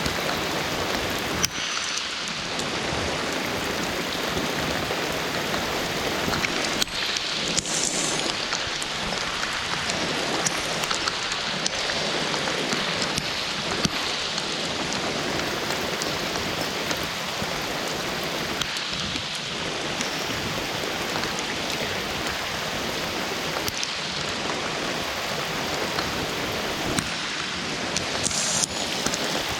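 Steady rain falling: a constant hiss with many separate drop hits scattered through it.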